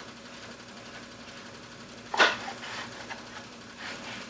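Handling noise as a replacement part is worked into a printer's mechanism: faint clicks and rustling, with one sharp knock about two seconds in.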